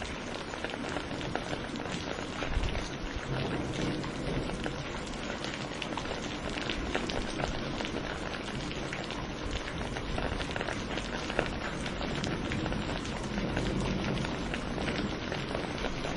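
Steady heavy rain, dense with the sharp patter of individual drops on a surface. A low rumble swells under it a few seconds in and again near the end.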